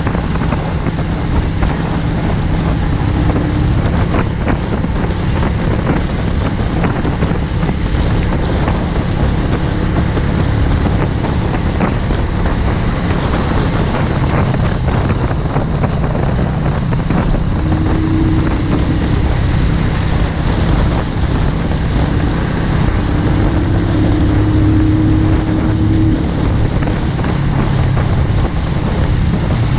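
Benelli Motobi 200 Evo's single-cylinder engine running steadily at a road cruise, with wind noise on the microphone.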